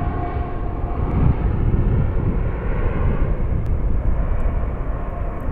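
Business jet on approach, its jet engines making a steady rumble that slowly dulls as the plane flies away; a faint engine whine fades out about a second in.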